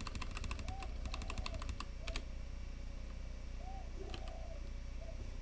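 Computer keyboard keystrokes: a quick run of key taps over the first two seconds, then a few single clicks.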